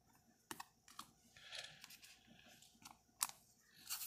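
Faint handling of trading cards: a few light clicks and taps as cards are flicked and set down, with a soft rustle about a second and a half in; the loudest tap comes just after three seconds.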